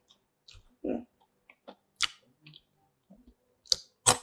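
Someone eating curly French fries: scattered small crunches and clicks of biting and chewing, with one brief low sound about a second in.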